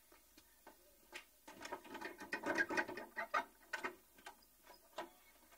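Knocking and rattling on an old wooden plank door: a few scattered raps, then a quick rattling run of knocks in the middle, then a few more raps.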